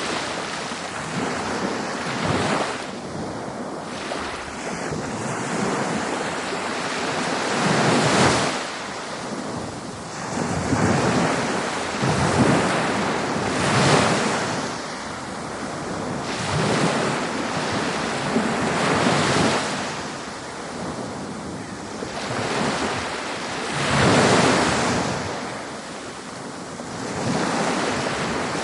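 Ocean waves breaking on a beach: a steady wash of surf that swells and falls as each wave comes in, with louder breakers every few seconds. Some wind on the microphone.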